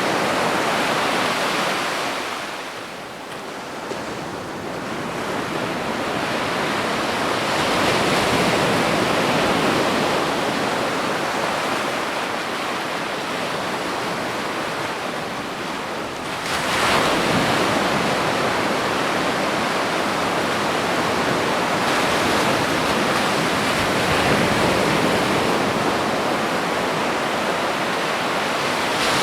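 Ocean waves breaking on a beach in a continuous wash of surf. The surf ebbs a few seconds in and builds back slowly. A bigger wave breaks suddenly about halfway through, and the wash stays loud after it.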